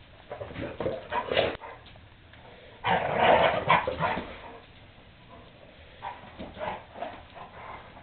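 Two dogs play-fighting, growling and barking in short bursts. The loudest outburst comes about three seconds in, with quieter bursts before and after.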